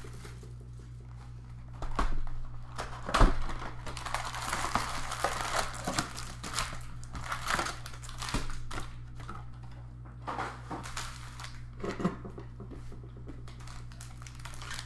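Baseball card pack wrappers crinkling and cards being handled in irregular rustles and light taps, loudest about two and three seconds in. A steady low hum sits underneath.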